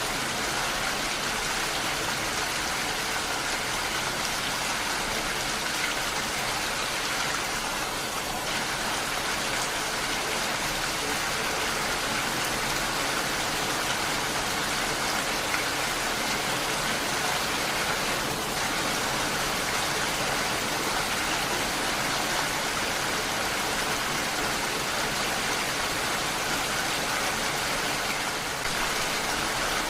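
Heavy rain falling steadily: a dense, even hiss of water with no let-up.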